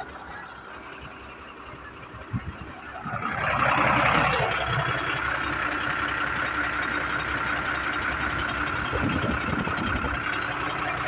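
Truck diesel engine idling steadily, getting louder about three and a half seconds in, with a couple of short knocks just before.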